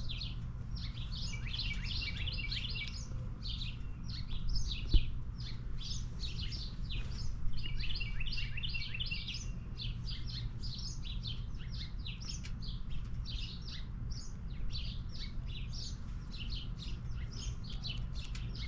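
A chorus of birds chirping, many short high calls one after another without a break, over a steady low rumble, with one brief knock about five seconds in.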